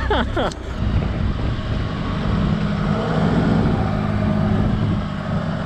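Holden Trailblazer 4WD's turbo-diesel engine running under load as it crawls slowly over a rutted dirt track, its note rising briefly about three seconds in.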